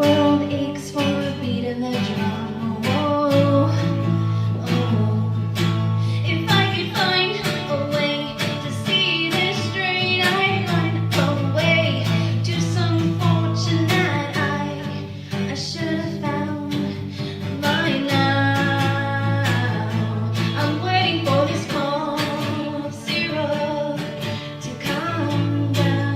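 Live guitar strummed in chords while a woman sings the melody over it.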